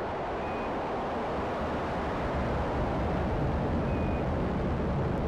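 Atlas V rocket's engines firing as it lifts off carrying the Starliner capsule: a steady, dense rumble that does not let up.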